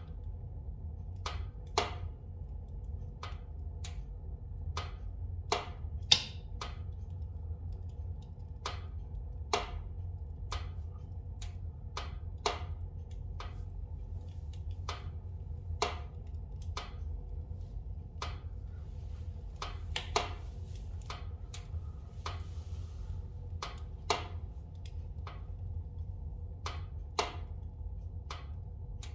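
Spruce logs burning in a fireplace, crackling with irregular sharp pops, about one or two a second, a few louder ones among them, over a steady low rumble.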